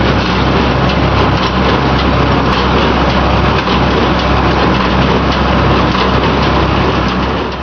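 Allis-Chalmers 190XT tractor engine running steadily under load while driving a New Holland 565 square baler, the baler's machinery clattering along with it.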